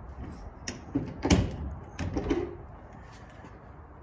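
A shed door being pushed shut and latched: a few knocks and clunks, the sharpest just over a second in.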